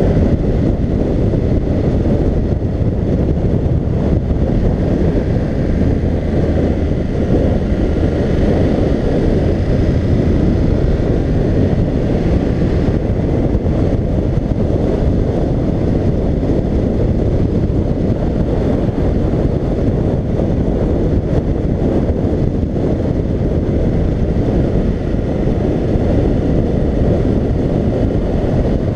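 Steady low wind rush on a helmet-mounted camera's microphone at road speed on a BMW F750GS motorcycle, with the engine and tyre noise blended in underneath.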